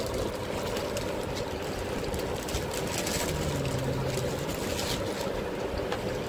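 A steady low droning rumble, with a few brief crinkles of plastic packaging being handled about three and five seconds in.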